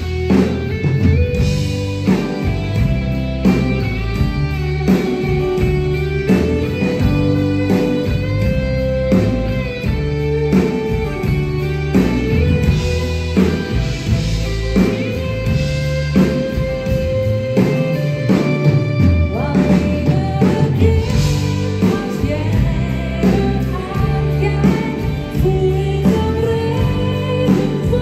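Live pop band playing loudly: a woman singing a held melody over guitar, keyboard and drums with a steady beat.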